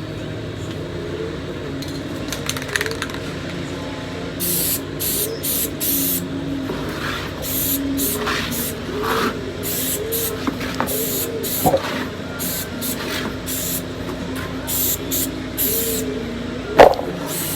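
Aerosol can of black gloss enamel spray paint hissing in a long series of short bursts, starting about four seconds in, as trim is sprayed. A single sharp knock near the end is the loudest sound.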